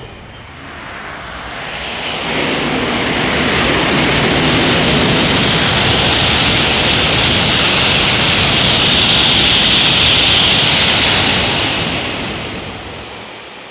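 E2 series Shinkansen passing through the station at speed: a rush of air and rolling noise that builds over several seconds, holds loud for about six seconds, then fades quickly as the train clears.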